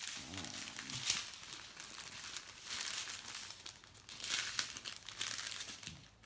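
Plastic packaging of a diamond painting kit crinkling and rustling in uneven bursts as it is handled.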